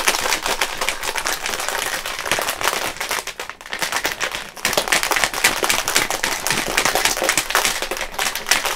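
Plastic shaker bottle of powdered drink mix and water being shaken hard: a fast, continuous rattling and sloshing clatter that briefly eases off about three and a half seconds in, then carries on.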